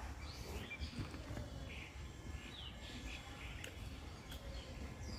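Birds chirping in a scattering of short calls over a steady low rumble of outdoor background noise.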